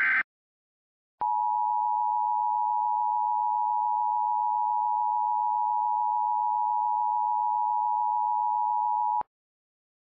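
Emergency Alert System attention signal: two steady tones sounded together (853 and 960 Hz), starting about a second in and cutting off sharply after about eight seconds. At the very start, the last fraction of a second of the SAME digital header's data burst.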